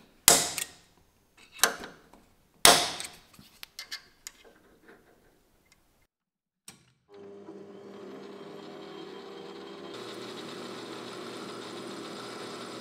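Sharp metal clicks and clanks as the lathe chuck is tightened by hand with its key, loudest in the first three seconds. About seven seconds in, the metal lathe is running steadily, spinning the work between centers, and grows a little louder around ten seconds in.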